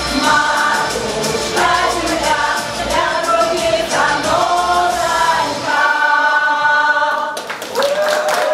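Women's folk ensemble singing a Russian folk song in chorus over a low accompaniment, ending on a long held chord that cuts off about seven seconds in. Clapping starts just after, under one voice holding a long note.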